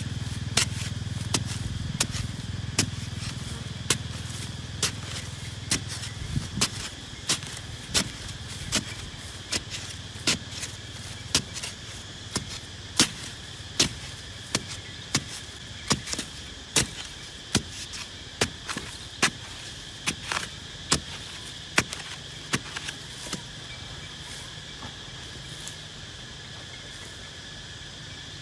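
Digging pole jabbed again and again into hard, dry soil, each stroke a sharp strike, roughly one to two a second. A low engine-like hum sits under the first few seconds and fades out.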